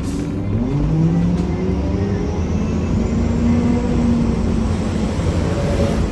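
A 1993 Gillig Phantom transit bus's Cummins ISM diesel engine accelerates, its pitch rising in steps. Under it runs a loud grinding noise, which the owner suspects comes from the Allison B400R transmission.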